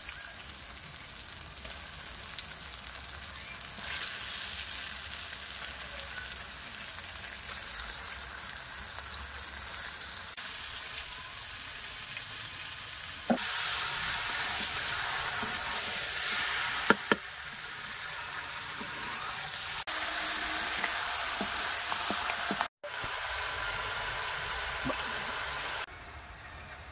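Chicken pieces with onions and spices frying in a steel kadhai, sizzling steadily, with a metal spatula scraping and knocking against the pan a few times. The sizzle turns fainter near the end.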